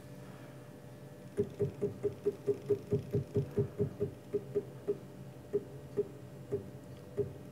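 Z-axis stepper motor of a CNC-converted Grizzly G0704 mill jogging the head down in single small steps, each one a short sharp pulse. The steps come about five a second at first, then slow to separate steps half a second or more apart near the end as the head is eased onto a dial indicator's zero.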